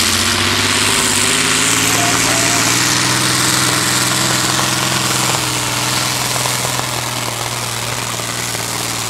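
A competition pulling tractor's engine running loud and hard, a heavy steady drone with a noisy upper edge. Its pitch rises slightly about a second in, and it gets a little quieter after about five seconds.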